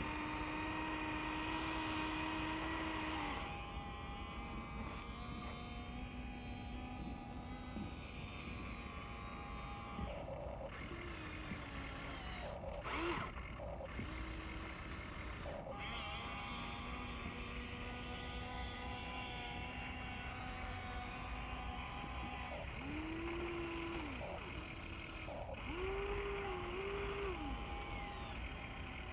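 Huina 1593 RC excavator's small electric motors and gearboxes whining as the boom, arm, bucket and swing are worked. The whine starts and stops in bursts of a few seconds, each at its own pitch, with short rising and falling sweeps as the motor speeds change near the end.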